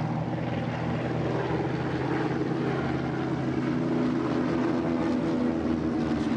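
Propeller aircraft piston engine running steadily, with its tone rising slightly in pitch in the second half.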